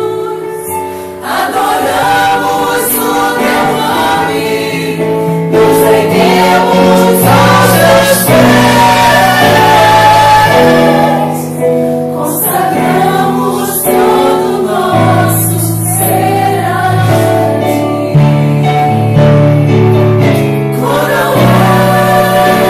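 A church congregation singing a gospel worship song together, over instrumental accompaniment with sustained bass notes and cymbals.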